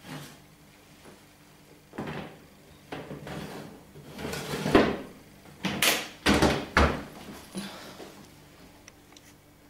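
Metal baking trays scraping and clanking as they are slid onto the rack of a domestic electric oven, then the oven door swung shut, with the loudest knocks a little past the middle.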